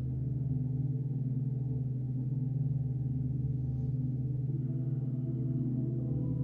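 Deep gong drone, a low steady hum with a slight throb and no fresh strike, played as recorded meditation music.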